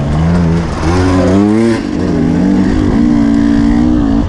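KTM 300 two-stroke dirt bike engine under load on the trail, revving up about a second in, dropping sharply just before two seconds as the throttle is cut or a gear is changed, then holding a steady higher pitch.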